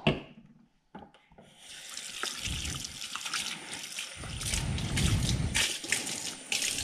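A short spritz of a spray bottle at the very start, then a kitchen tap turned on about a second and a half in, water running into the sink. It splashes more heavily from about four seconds in as a dive mask is rinsed under the stream by hand.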